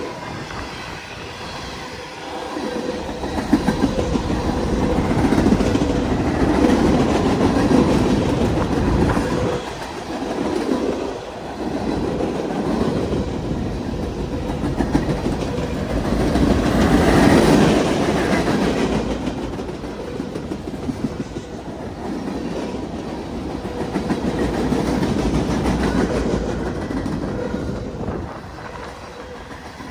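Mixed freight train rolling past, a steady rumble and clatter of steel wheels on the rails that swells and eases as the cars go by.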